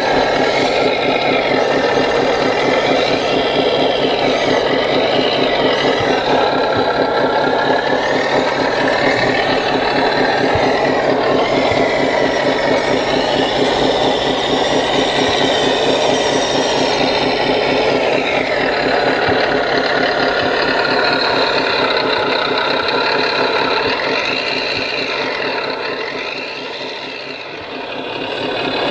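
Simulated diesel engine running steadily from the RC construction models' sound modules, mixed with the whine of electric drive motors and gearboxes rising and falling as the scale CAT 963D track loader drives and works its bucket. The sound dips briefly near the end, then returns.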